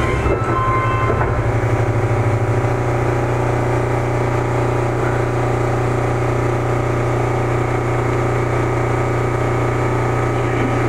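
Sendai Subway 1000 series train with Mitsubishi IGBT-VVVF inverter, heard from inside the car as it comes to a stop. The inverter's braking tones end about a second in and the rumble dies away by about three seconds, leaving the standing car's steady low electrical hum.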